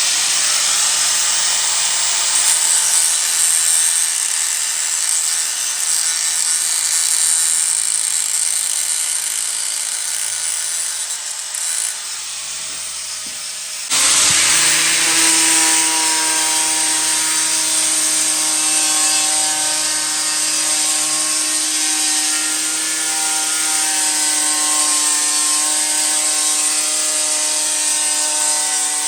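Power tool running under load on a tractor's steel wheel hub, a steady cutting hiss. It eases off about twelve seconds in, then the motor spins back up with a rising whine that settles into a steady hum under the hiss.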